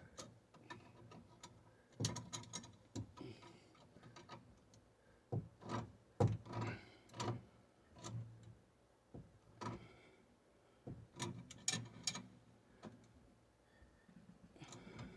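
Irregular metallic clicks and knocks of a wrench and channel-lock pliers working on a water meter's coupling nut as it is snugged.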